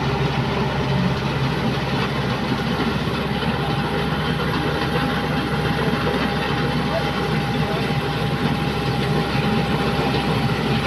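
Preet combine harvester running steadily while it cuts paddy: an even engine drone with a constant thin whine over it.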